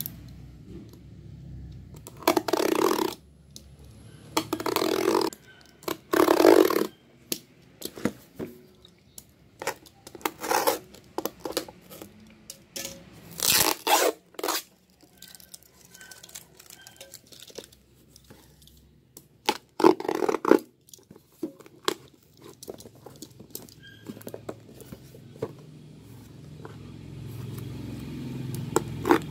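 Cardboard parcel being opened with a utility knife: packing tape and cardboard slit and torn in a series of short, loud noisy strokes, with smaller clicks and rustles of handling between them.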